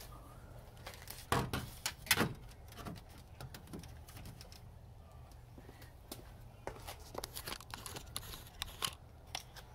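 Handling noises as a handheld LED work light is stood up and positioned in a car trunk: scattered clicks, knocks and rustling, with two louder knocks about one and two seconds in.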